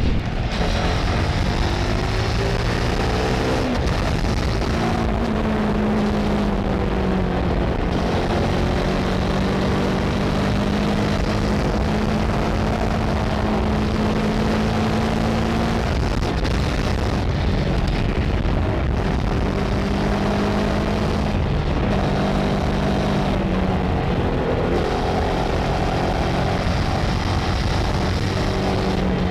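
Kove 800X Pro's parallel-twin engine and exhaust under way, the engine note climbing and dropping as the bike accelerates and eases off, held steady for a stretch in the middle. Steady wind noise runs underneath.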